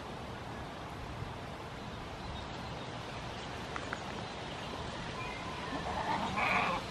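Steady outdoor background noise, then a goat bleats once, briefly and close by, near the end.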